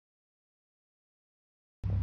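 Total silence, a blank sound track, until near the end, when a low rumble cuts in abruptly.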